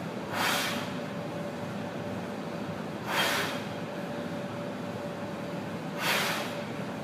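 A man's sharp, forceful breaths: three short blasts about three seconds apart, one with each muscle-up on a pull-up bar, over a steady background hum.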